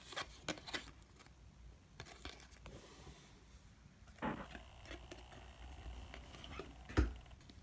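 Faint scrapes and light clicks of cardboard trading cards being shuffled and slid against one another in the hands, with a sharper tap near the end.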